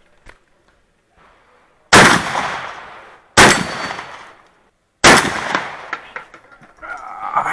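Shotgun fired three times, about a second and a half apart. Each shot is loud and trails off in a long echo. Near the end comes a quieter stretch of clattering and ringing.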